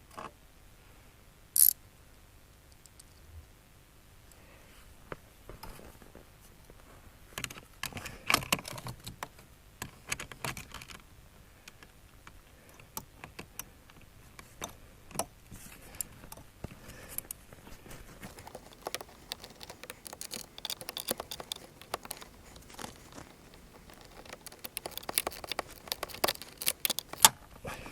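Hand tools clicking and clinking on metal as the mounting bolt of a snowmobile ice scratcher is tightened: irregular sharp clicks that come thicker near the end, with one sharp click about a second and a half in.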